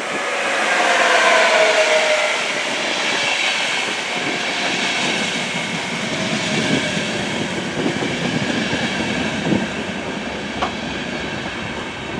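An electric locomotive passes close by, its whine falling in pitch over the first two seconds. Double-deck passenger coaches then roll past with steady wheel and rail noise and scattered clicks over rail joints.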